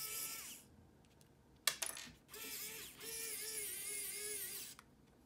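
Pen-style electric screwdriver motor whining as it drives a screw, its pitch wobbling up and down under load. It stops about half a second in, a few sharp clicks follow, then it runs again for about two and a half seconds and stops.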